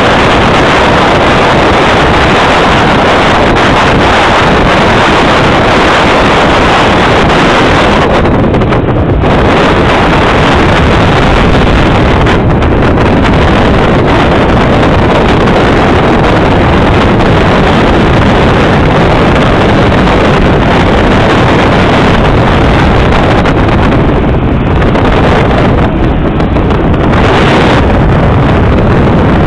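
Motorboat engine running steadily under way, loud and constant, with wind buffeting the microphone.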